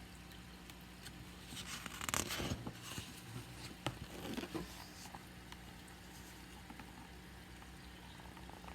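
Soft rustling and handling noise, in two short spells about two seconds in and around four seconds in, with a few light clicks, over a faint steady hum.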